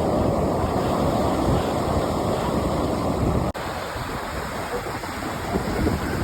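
Ocean surf washing onto the beach, with wind buffeting the microphone. About three and a half seconds in the sound drops out for an instant and carries on a little quieter.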